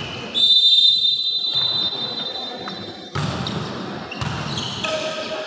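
Referee's whistle: one long, steady, high blast starting about half a second in and fading away over some three seconds. Then crowd noise rises suddenly, with a few thuds of the volleyball being struck.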